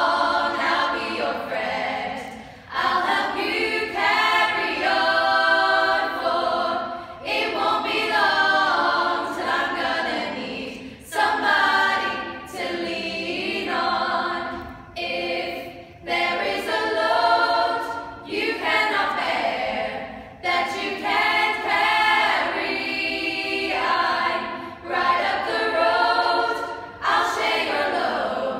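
Women's vocal group singing a cappella in several-part harmony, in phrases a few seconds long with short breaks between them.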